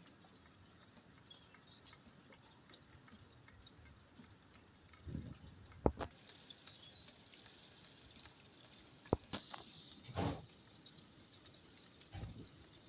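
Faint rain with water dripping: scattered sharp drip taps and a few soft thumps over a low steady hiss.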